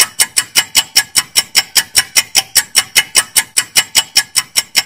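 Countdown timer ticking sound effect: rapid, evenly spaced sharp ticks, about seven a second.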